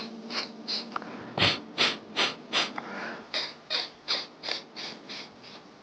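Rapid, forceful snorting exhalations through the nose, about fourteen short puffs at roughly two and a half a second. They blow the leftover rinse water out of the nostrils after jala neti nasal cleansing.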